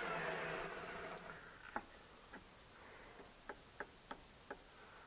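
A power tool coasting down and fading out in the first second or so, followed by about seven light, sharp clicks and taps at irregular spacing as pieces are handled on the bench.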